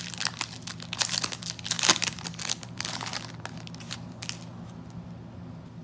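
Foil trading-card pack wrapper being crinkled and crumpled in the hand, a dense run of sharp crackles that thins out after about three and a half seconds.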